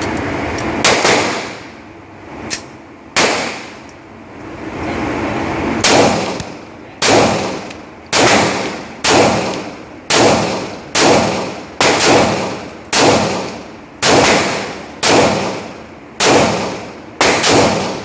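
Gunshots from a semi-automatic firearm at a shooting range. A few scattered shots come first, then a steady string of about a dozen shots, roughly one a second, each sharp crack ringing off briefly.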